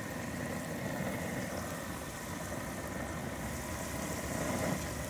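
Egg rolls frying in hot oil in a cast iron skillet, a steady sizzle, over the steady running of an outdoor propane burner beneath it.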